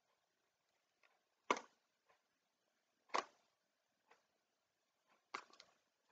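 Short scattered clicks and rattles of a hard clear plastic case being handled and pried at while someone struggles to open it. Three louder clicks come about two seconds apart, with fainter ticks between.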